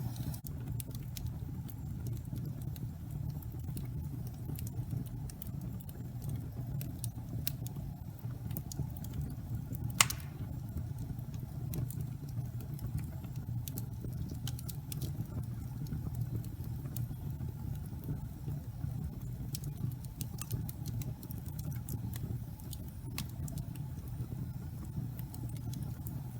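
Wood fire burning in a fireplace: a steady low rumble of flames with scattered small crackles and one loud pop about ten seconds in.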